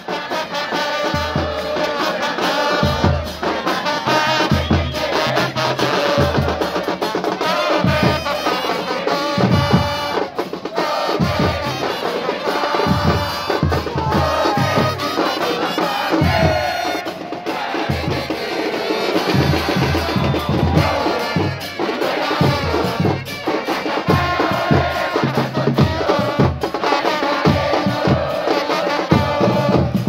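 Football supporters' band playing a stand chant: bass drums pounding a steady beat under trumpets playing the melody.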